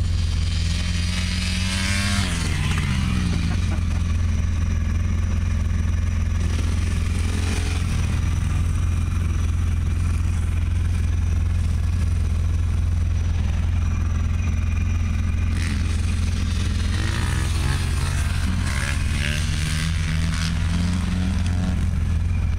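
Dirt bike engine heard from a distance, its pitch rising and falling as the throttle is worked, with two clear rev-ups and drops: one near the start and one near the end. Under it runs a steady low rumble.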